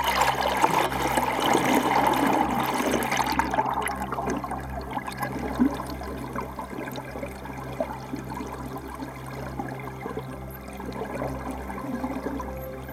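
Water rushing and bubbling over a camera as it goes under the surface beside a moving kayak, loudest for the first few seconds. It then settles into quieter, muffled underwater water noise with scattered small ticks.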